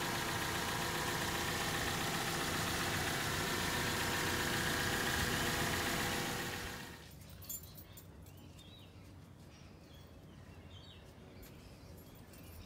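Steady, loud machine running noise with a hum of several steady tones, fading out about seven seconds in. Quiet outdoor background follows, with faint bird chirps.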